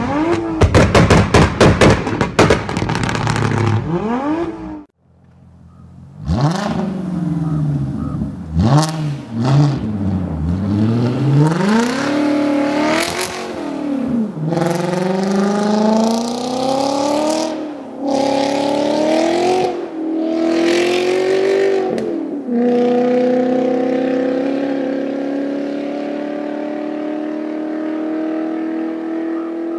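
Straight-piped Volkswagen Passat W8's 4.0-litre W8 engine accelerating hard through the gears, the revs climbing and dropping back at each shift, then holding one long, slow climb in a high gear. Before it, a rapid run of sharp cracks fills the first few seconds and breaks off into a brief gap.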